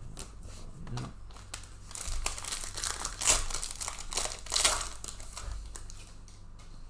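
Plastic wrapping on trading-card packaging crinkling and tearing as it is opened by hand, in a run of crackly bursts loudest in the middle.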